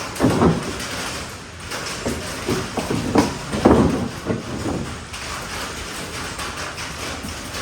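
Irregular knocks and scraping as a fiberglass aftermarket bumper is handled and pushed into place against the car's rear.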